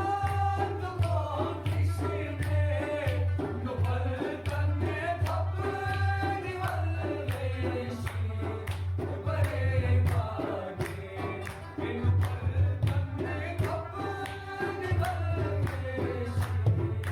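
Background music with a sung melody over a steady low drone and hand-drum beats, in a South Asian style.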